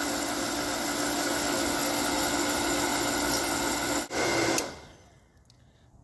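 Simer electric well pump motor running steadily as it builds pressure. About four seconds in the pressure switch contacts click open and the motor spins down to near silence: the switch is cutting out at its set pressure, as it should.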